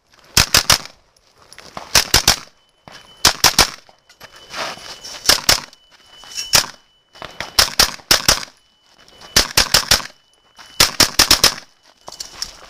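Pistol-calibre AR-style carbine firing, in quick clusters of two to four shots about once a second, with short pauses between groups.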